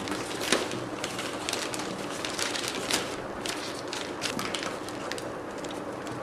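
Newspaper rustling and crinkling as it is wrapped and pressed by hand around a paper form, with a few sharper crackles, the loudest about half a second in and about three seconds in.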